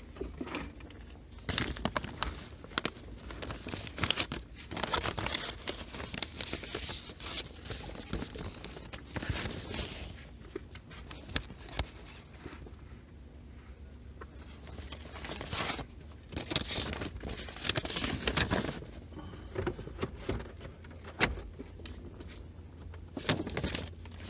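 Paper and small objects being rustled and handled, with irregular crinkling and clicks over a low steady hum, as of someone searching for a vehicle's registration.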